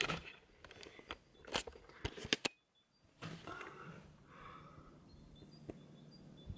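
Handheld camera being raised through the yurt's roof opening: sharp handling clicks and knocks as it brushes against the fabric roof. After a brief dropout about two and a half seconds in, faint outdoor ambience with short high bird chirps.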